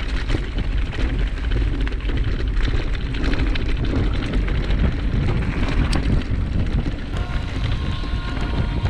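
Wind buffeting the microphone with a heavy rumble, and clattering from a mountain bike riding over rough trail ground.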